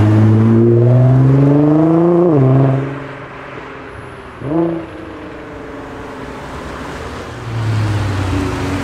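Nissan GT-R's twin-turbo V6 accelerating hard past, its pitch climbing for about two seconds before falling sharply, then dropping quieter. About four and a half seconds in a short rev rises and falls, and near the end the engine note comes back louder and steady.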